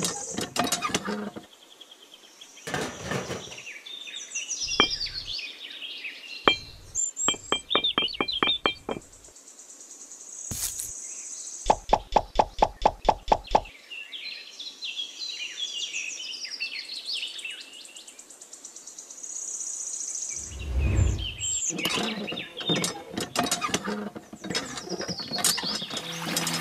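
Small birds chirping, mixed with tapping and knocking from hand work; near the middle comes a fast even run of clicks, about eight a second for two seconds, the loudest part.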